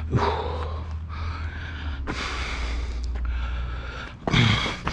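A man breathing hard in a run of deep breaths, each about a second long, after lifting a heavy appliance. Under it is a steady low hum that stops about four seconds in, followed by a louder noisy burst near the end.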